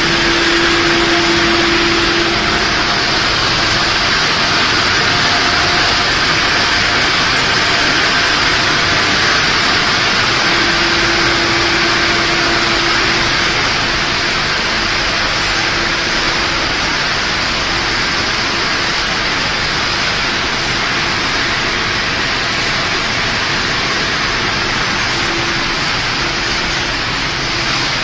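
Machinery of a puffed-snack production line running: a steady mechanical noise with a faint humming tone that comes and goes.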